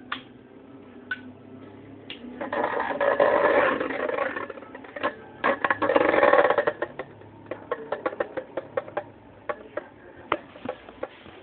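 Two Beyblade metal spinning tops battling in a clear bowl: a loud rasping whirr as they spin and grind against each other and the bowl, twice, about two and a half seconds in and again near the middle. Then a fast, uneven run of sharp clicks as they collide.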